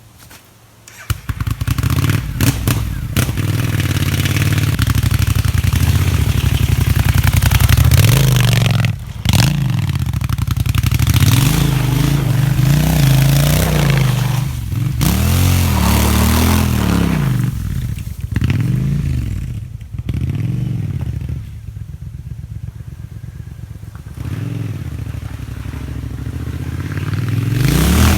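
Triumph Scrambler parallel-twin engine running through an Arrow 2-into-1 exhaust fitted with a custom stainless-steel baffle, with repeated rises and falls in revs and a few brief drops. It comes in about a second in.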